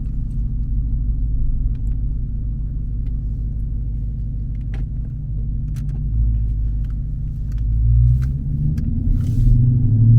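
Dodge Charger's Hemi V8 engine running with a steady low rumble, heard from the car; about eight seconds in the note rises and grows louder as the car accelerates.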